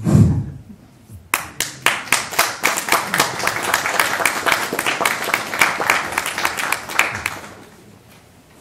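Audience clapping in applause, starting about a second in, as many dense, irregular claps that thin out and die away near the end.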